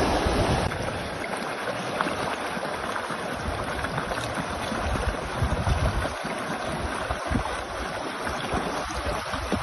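Muddy flash-flood water rushing down a wadi, a steady noise of churning water, with wind gusting on the microphone, strongest in the first second.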